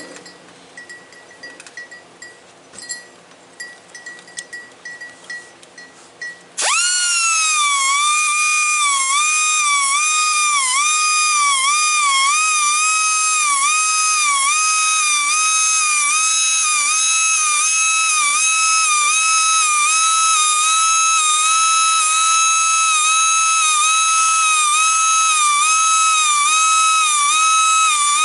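Band sawmill blade sharpener: light ticking and clinking, then about six and a half seconds in the grinding wheel starts with a loud high whine. Its pitch dips briefly about once a second as the wheel grinds each tooth of the blade.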